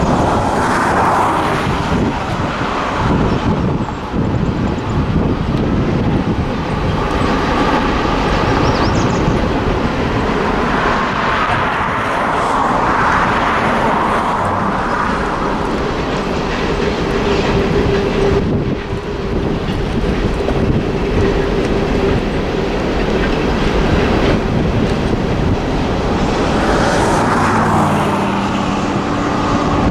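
Freight train of hopper cars rolling past, a steady rumble and clatter of steel wheels on the rails that swells every few seconds. A steady tone sounds for a few seconds about halfway through.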